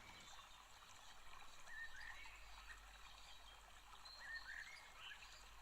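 Near silence: faint room tone with a low hum and a few faint, short high-pitched chirps.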